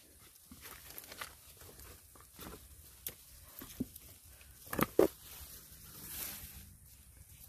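Rustling and snapping of dry twigs and leaf litter as someone pushes through a tangled thicket, with two loud sharp knocks about five seconds in.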